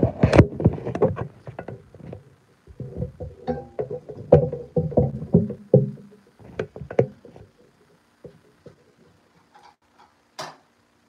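Bumps, knocks and rubbing of a phone being handled and set up to film, for about the first seven seconds. Then it goes quiet but for a faint steady hum, with a single clink near the end.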